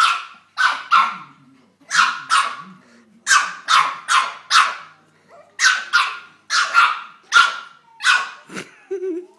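Pug barking in short, sharp yaps, in quick runs of two to four with brief pauses between.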